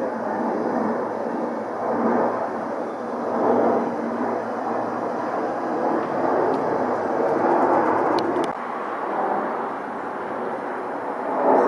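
Steady rushing jet noise of an Embraer E-Jet's twin turbofan engines as the airliner passes overhead on landing approach with gear down, swelling and easing slightly.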